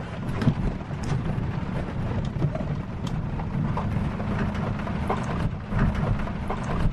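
Truck engine running steadily as the vehicle drives a rough sandy trail, with scattered knocks and rain falling on the vehicle.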